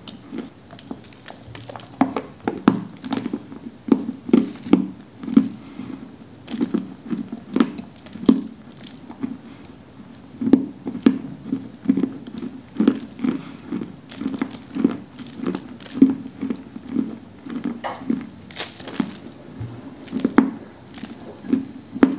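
Close-up chewing of a dry, dusty piece of Orsk cream edible clay, with crisp crunches at about two a second.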